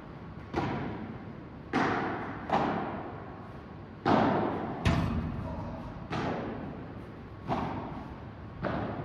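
Padel rally: the ball struck by rackets and bouncing off court and glass walls, about eight sharp pops at uneven intervals. Each pop rings out in a long echo from the big indoor hall.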